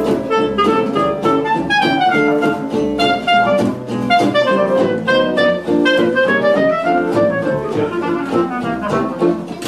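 Instrumental music: a quick melody of short notes running up and down over a steady accompaniment.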